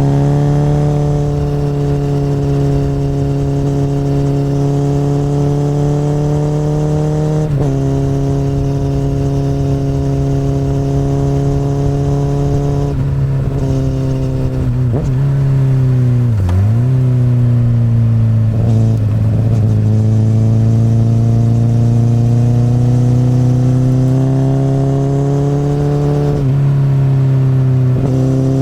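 2008 Honda CBR1000RR (SC59) inline-four engine running through an Akrapovic exhaust while riding, its pitch rising and falling with throttle and gear changes. The pitch drops sharply about seven seconds in, dips and swells in the middle, then climbs slowly before dropping again near the end.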